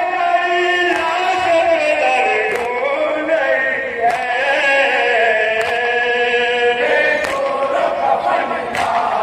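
Men's voices chanting a nauha, a Shia lament, together through microphones in long held, wavering notes. Sharp slaps of chest-beating (matam) mark it every second or two.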